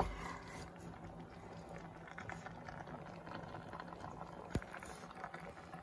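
Chicken and potato stew simmering in a pot, a soft bubbling and crackle over a faint steady hum, with one sharp click about four and a half seconds in. The potatoes are not yet cooked through.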